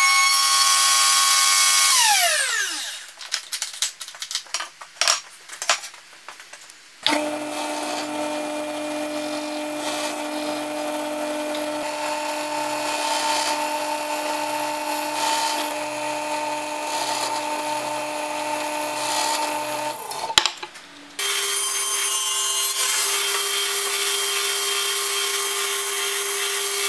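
Woodworking power tools in use. A machine runs with a steady whine and spins down, its pitch falling, about two seconds in. A few seconds of knocks and handling follow. A machine then runs and cuts from about seven seconds in, stops briefly near twenty seconds, and starts again.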